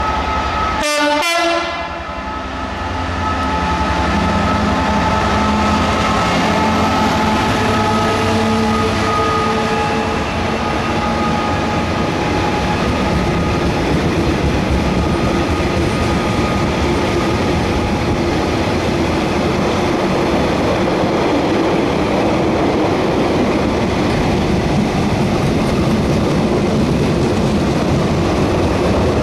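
A Class 66 diesel locomotive sounds its two-tone horn near the start as it passes. Its two-stroke V12 engine then runs by, followed by a long rake of loaded hopper wagons rumbling and clattering steadily over the rail joints.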